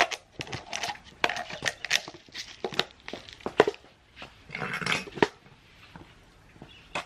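Irregular clatter of hard knocks and clinks as garden pots and potting soil are handled while planting seedlings, with a longer scraping rustle about five seconds in.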